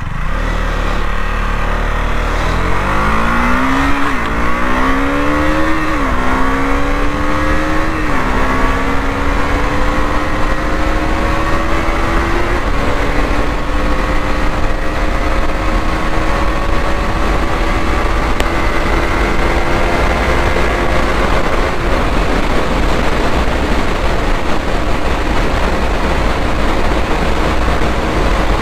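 2020 KTM Duke 200 BS6's single-cylinder engine accelerating hard through the gears from a standstill: its pitch climbs and drops back at four quick upshifts, then rises slowly in the top gears toward top speed. Heavy wind rush on the microphone lies under the engine.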